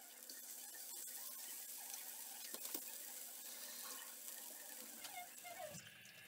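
Meat patties sizzling in hot oil in a grill pan, a steady hiss, with a few light clicks of metal tongs against the pan as they are turned.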